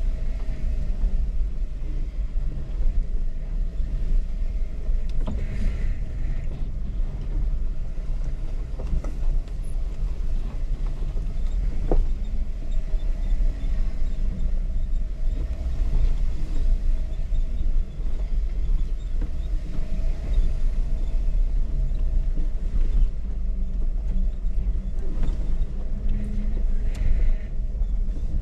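Jeep engine running at low revs as it crawls over rocks, a steady low rumble broken by a few short knocks.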